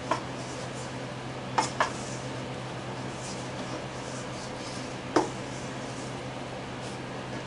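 Wooden spoon working stiff bread dough in a stainless steel mixing bowl, with faint scraping and four sharp knocks against the bowl: one near the start, a quick pair about a second and a half in, and one about five seconds in. A steady low hum runs underneath.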